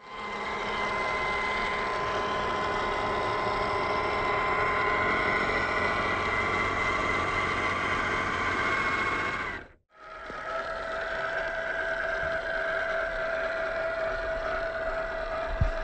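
A 1/10-scale Boom Racing BRX02 RC crawler truck running with a steady whine that drifts slowly in pitch. It cuts out briefly about ten seconds in and returns at a different pitch, with a single short knock near the end.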